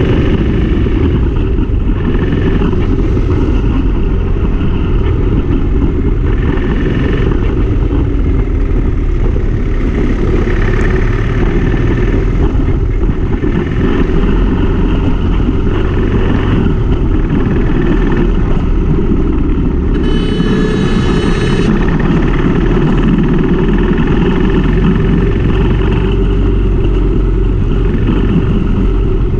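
Motorcycle riding in city traffic: its engine runs steadily under heavy wind rush on the microphone, with surrounding traffic. A brief high-pitched tone sounds about two-thirds of the way through.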